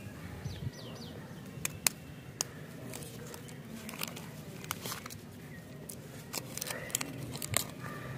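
Lollipop wrapper of foil-lined paper being peeled open and unfolded by hand: irregular crinkles and sharp crackles, several in quick clusters.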